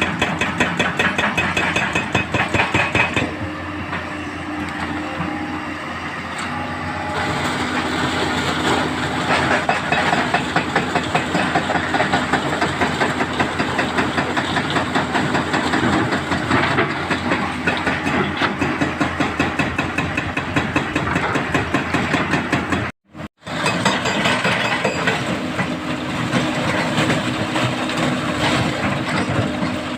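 Heavy diesel earth-moving machinery working: excavator and dump truck engines running with a constant fast rattling and clanking. The sound cuts out for a moment about two-thirds of the way through.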